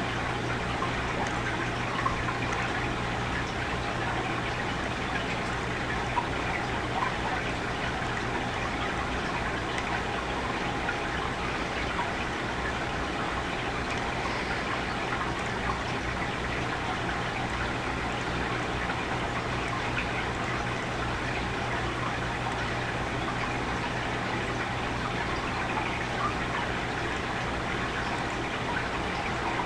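Steady hiss with a constant low hum: the noise floor of a computer microphone recording, with a few faint clicks scattered through it.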